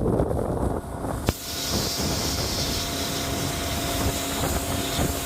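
An engine running steadily under a loud hiss of wind and rushing air. The sound changes abruptly with a click about a second in, and a steady hum comes through from about halfway.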